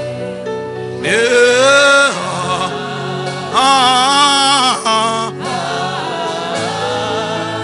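Slow worship music: sustained keyboard or pad chords with a voice singing two long held notes with vibrato, one about a second in and another around three and a half seconds in.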